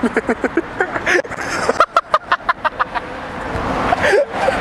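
Young men laughing in quick repeated bursts, with car traffic behind.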